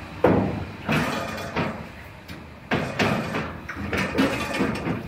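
Steel pickup bedside panel being handled and lifted off the bed, giving several separate sheet-metal clunks and knocks, each with a brief ring.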